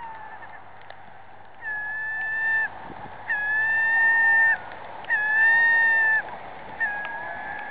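A horn sounding four steady, flat-pitched blasts of about a second each, starting and stopping abruptly.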